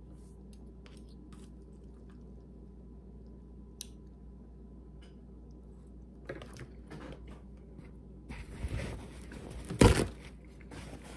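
Quiet eating: a fork clicking in a paper cup and soft chewing of mac 'n cheese. About eight seconds in, paper rustling builds, and just before the end a paper towel is pulled and torn off in one loud rip.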